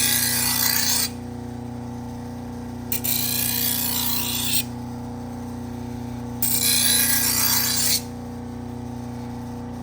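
Knife edge drawn across a spinning paper burr-removal wheel charged with white compound: three hissing passes, each about a second and a half, over the steady hum of the wheel's motor. These are deburring passes at the sharpening angle.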